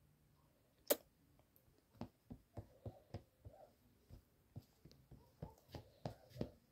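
A sharp click about a second in, then a run of soft, irregular clicks and taps, two or three a second.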